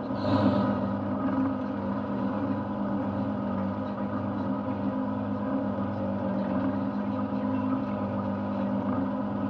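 Yamaha outboard motor running steadily on a lobster boat, an even low engine note. There is a brief hiss just after the start.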